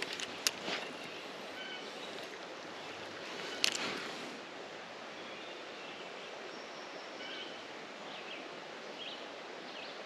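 Steady rush of a shallow creek's flowing water, with a few light clicks, the sharpest about three and a half seconds in.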